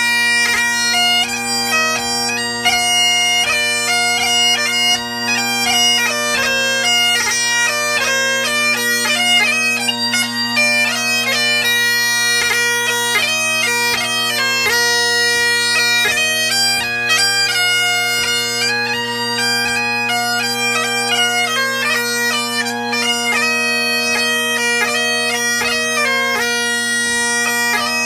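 Great Highland bagpipe played solo: the chanter plays a quick, ornamented pipe tune over the steady, unbroken hum of the drones.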